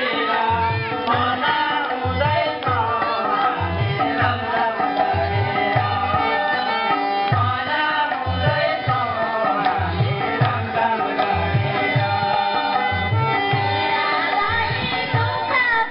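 Nepali Teej folk song: singing over a steady, rhythmic hand-drum beat.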